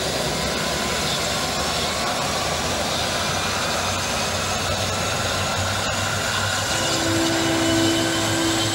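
Antonov An-22's Kuznetsov NK-12 turboprop running with its contra-rotating propellers turning: a steady rushing roar under a turbine whine that rises slowly in pitch.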